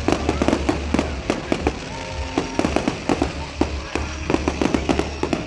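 Fireworks and firecrackers going off, a dense, irregular string of sharp pops and bangs several times a second over a steady low rumble.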